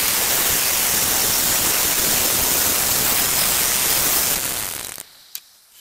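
Electric band sawmill running, its blade cutting a fresh linden log with a loud, steady hiss that fades out about five seconds in.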